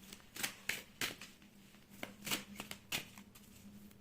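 Tarot cards being gathered and shuffled by hand: an irregular string of sharp card slaps and flicks.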